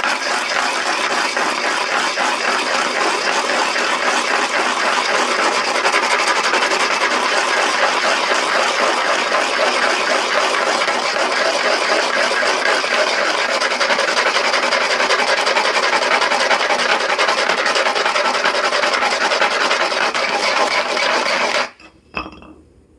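An empty metal can scraped rim-down against a block in a steady, rapid rasping grind, wearing through the seam to take the lid off. The grinding cuts off suddenly near the end, leaving a few faint clicks.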